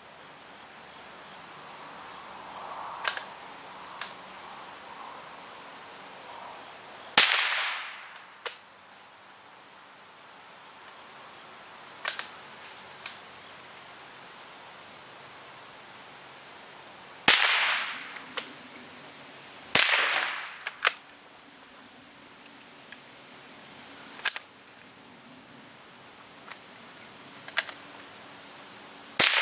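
Winchester Model 67 single-shot bolt-action .22 rifle firing high-velocity .22 rounds: four sharp cracks several seconds apart, with lighter clicks in between.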